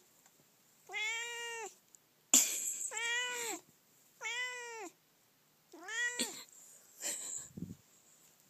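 Domestic cat meowing four times, drawn-out meows that each rise and then fall in pitch, about one and a half seconds apart. A couple of short noisy bursts come between them, one just before the second meow and one near the end.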